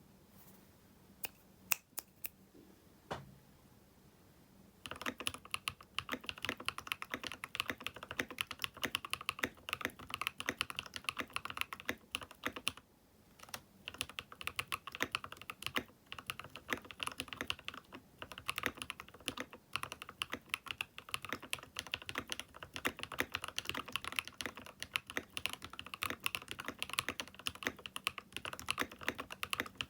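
Keychron K6 Pro mechanical keyboard fitted with Owlab London Fog switches, typed on. A few single keystrokes come first, then fast, continuous typing starts about five seconds in, with a brief pause partway through.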